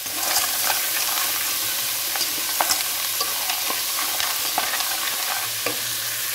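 Dry spiral pasta being stirred with a wooden spatula through sizzling tomato masala in a pot: a steady frying hiss with many small clicks and scrapes of pasta and spatula against the pan.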